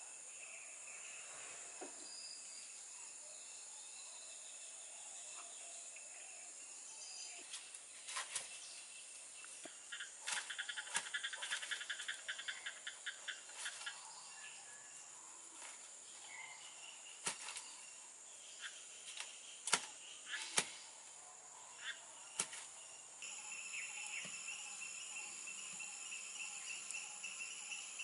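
A steady high-pitched chorus of insects, with scattered sharp clicks and scrapes of a large knife cutting the rind off a breadfruit, busiest about ten to fourteen seconds in and again around twenty seconds in.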